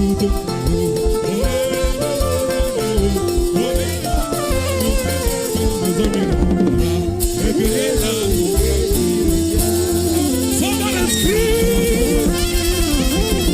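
Live gospel band playing an upbeat praise groove with drum kit, bass and keyboard, with a melody line and some singing over it.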